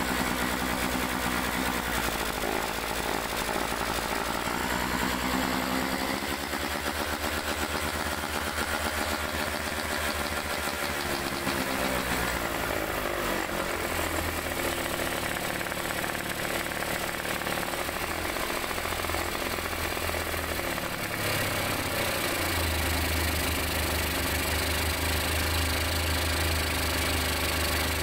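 Honda NS250F's two-stroke V-twin running with its air box off, breathing through the open carburettor bellmouths. It is revved and held at higher revs for several seconds, then drops back to a steady idle about halfway through.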